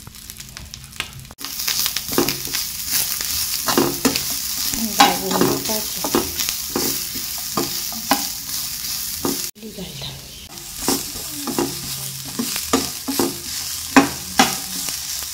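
Grated coconut and onion frying in a little oil in a pan, with a steady sizzle and a spatula scraping and stirring in repeated short strokes. The sound breaks off abruptly twice: once just over a second in and once about two-thirds of the way through.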